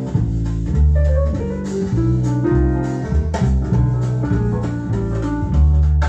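Recorded music played back in the room over Edifier S2000MK3 powered speakers, with a strong, deep bass line and regular sharp beats.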